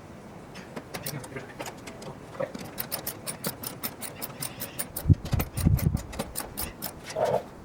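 Hand tools clicking and tapping in a quick, even run of sharp clicks, about six a second, with a few low thumps about five seconds in.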